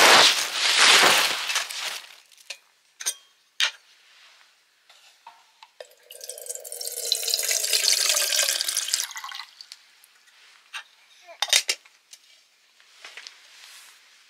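Water pouring for about three seconds into a container, among scattered clicks and knocks of camp cookware; it opens on a loud hiss that dies away about two seconds in.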